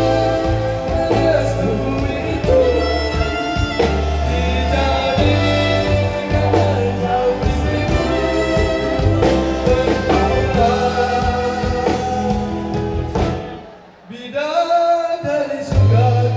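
Live band playing a slow pop love song with bass, drums and guitar under singing. Near the end the band stops for about two seconds while a voice carries on alone, then the bass comes back in.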